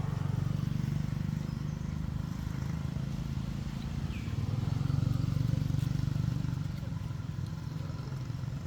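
A steady low motor hum with no change in pitch, and a faint short chirp about four seconds in.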